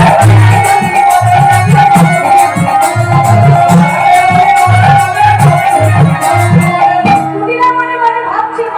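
Kirtan devotional music played loud: drums beating a quick rhythm under jingling percussion and held melodic notes. The drumming stops about seven seconds in, leaving the sustained notes.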